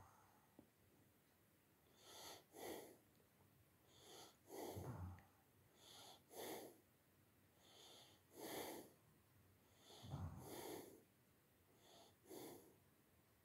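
Faint breathing, six soft breaths spaced about two seconds apart.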